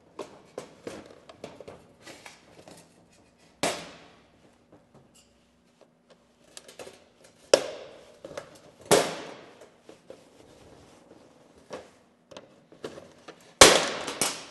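Plastic housing of an egg cooker being pried apart with a screwdriver and pry bar: a series of sharp cracks and snaps as the snap-fit seam gives, with small clicks and scraping between. Four snaps stand out, the loudest near the end.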